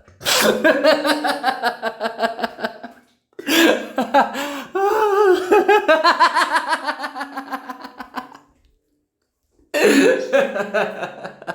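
Maniacal evil-scientist laugh: rapid pulsed 'ha-ha-ha' runs, breaking briefly about three seconds in and pausing for about a second near the nine-second mark before a last run.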